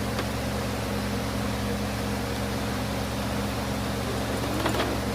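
Electric fan running: a steady whir of air with a constant low hum.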